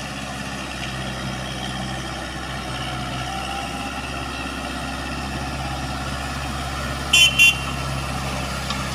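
Diesel tractor engine running steadily under load as it plows a flooded paddy field with a rotary tiller. Two short horn toots come close together about seven seconds in.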